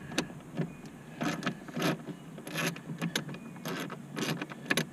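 Hand socket ratchet clicking in short, repeated strokes, about two a second, as a bolt is worked loose. It is a cheap ratchet that the owner says has about had it.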